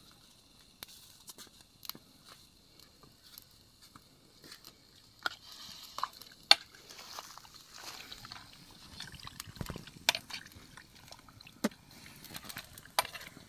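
Metal spoon stirring chicken pieces in an iron kadai, clinking and scraping against the pan in scattered sharp knocks, the loudest about six and a half seconds in.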